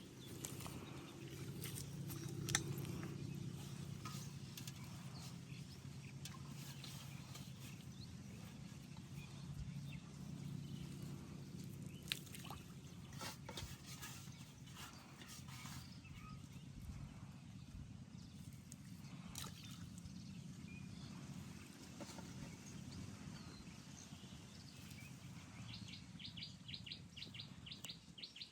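Faint outdoor ambience: a low steady rumble with scattered sharp clicks and knocks, and a bird giving a quick run of high chirps near the end.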